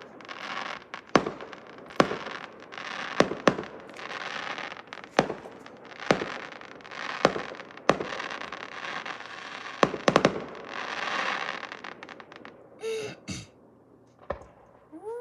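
Fireworks going off: sharp bangs about once a second, each followed by crackling. A quick run of several bangs comes about ten seconds in, and the display thins out near the end.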